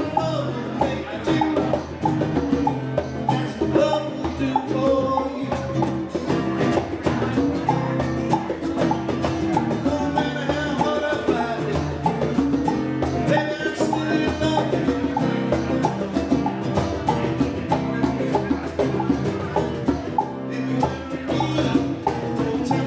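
Live band of two guitars and a drum kit playing a song with a steady beat.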